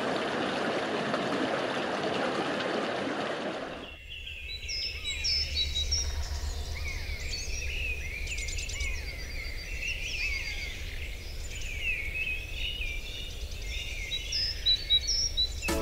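A dense office background noise cuts off abruptly about four seconds in. It gives way to many small birds chirping and whistling over a steady low rumble.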